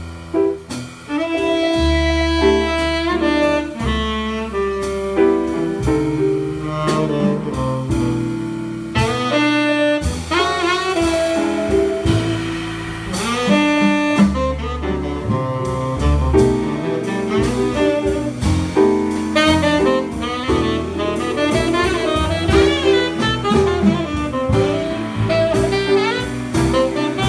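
Tenor saxophone playing a jazz line over grand piano, upright double bass and drum kit.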